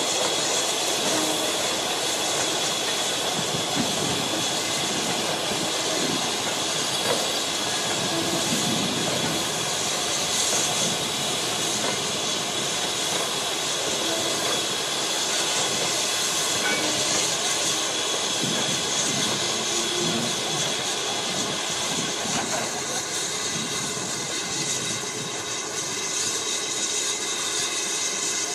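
Goods train of four-wheeled wagons rolling slowly past behind a diesel locomotive that is drawing away: a steady rumble and hiss of wheels on rail.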